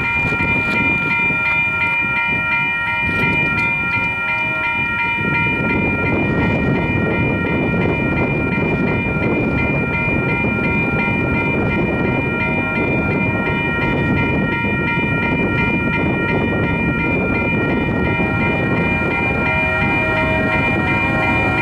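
Approaching diesel freight train's air horn sounding a steady chord of several notes, unbroken, over the low rumble of the train.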